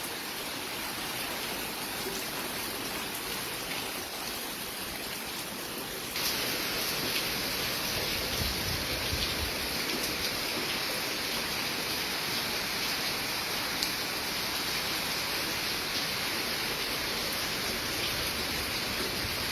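Heavy rain pouring down steadily, getting louder and brighter about six seconds in.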